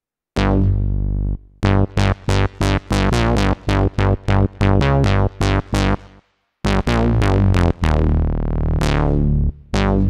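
Cherry Audio Chroma software synthesizer, an emulation of the Rhodes Chroma analog synth, playing a bass preset. After a short held note comes a fast run of short, bright bass notes, about four a second, each with a sharp attack that quickly dulls. A brief break follows, then more notes, one of them held for about a second near the end.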